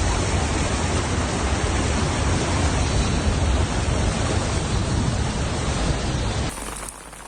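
Loud, steady rushing of water in a torrential downpour, with a deep rumble underneath. Near the end it cuts to quieter rain.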